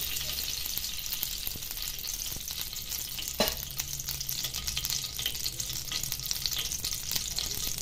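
Ghee sizzling and crackling as it heats in a kadhai: a steady high hiss full of tiny pops, with one sharper click about three and a half seconds in.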